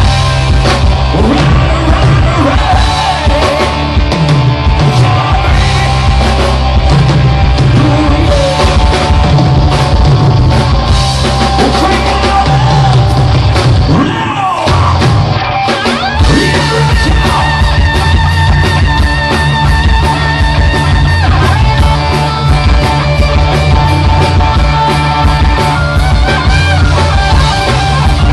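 Live hard rock band playing loud: distorted electric guitars, bass and a drum kit. About halfway through, the bass and drums drop out for a second or two while a guitar slides in pitch, then the full band comes back in.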